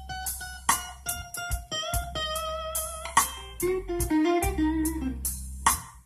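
Guitar-led music with drum hits and a deep, steady bass line, played through a Mitsubishi Mirage's car audio system (Kenwood KDC-100U head unit driving an Art Nouveau AN4.400 amplifier) and heard inside the cabin.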